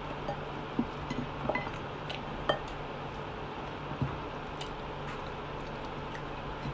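Eating sounds from fried chicken being torn apart by hand over a plate: scattered small clicks and clinks, the sharpest about two and a half seconds in, over a steady low hum.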